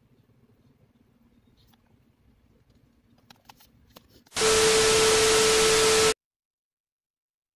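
A burst of loud static-like hiss with a steady humming tone in it, starting and stopping abruptly and lasting about two seconds. Before it there is faint room tone with a few small clicks.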